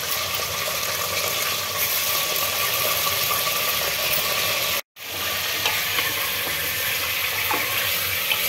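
Bone-in mutton pieces frying in hot oil in an aluminium pressure cooker: a steady sizzling hiss with small crackles, stirred with a wooden spoon near the end. The sound cuts out for a moment about halfway through.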